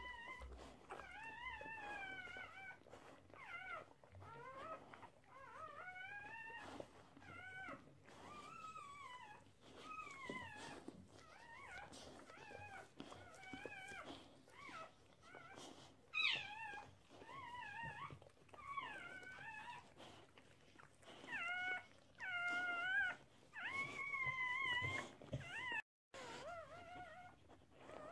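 Newborn puppies crying in a string of short, high, wavering squeaks, one after another, some bending up and down in pitch. The sound cuts out briefly near the end.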